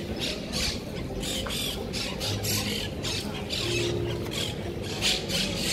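Footsteps scuffing on stone paving, about two a second, over a steady low rumble of outdoor ambience.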